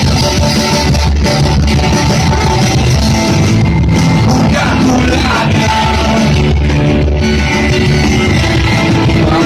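Live rock band playing loudly through a PA system: electric guitars, bass, drums and keyboard, with a singer.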